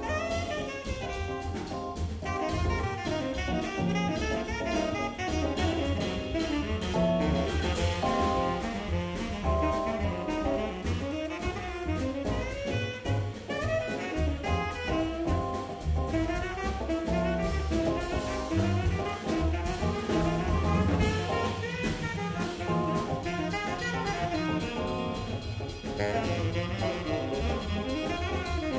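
Live small-group jazz: a tenor saxophone plays a fast, busy line over a rhythm section of Fender Rhodes electric piano, upright bass and drum kit with cymbals.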